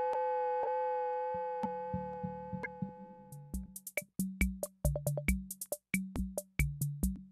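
Electronic background music: a held tone that fades over the first few seconds, then a steady drum-machine beat over a two-note bass line from about three seconds in.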